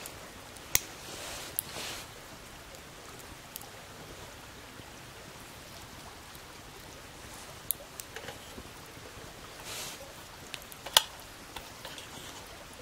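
Wood fire crackling: a few sharp pops over a faint, steady hiss.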